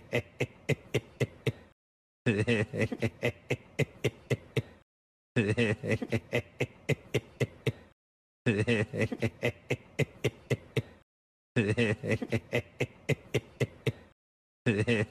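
A man's giggling laugh in quick 'heh-heh-heh' pulses, the same short laugh repeated over and over about every three seconds with a brief dead-silent gap between repeats.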